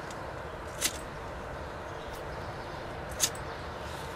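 A tobacco pipe being lit and puffed: two short, sharp hissing sounds, one about a second in and one near the end, over a steady background rush of outdoor noise.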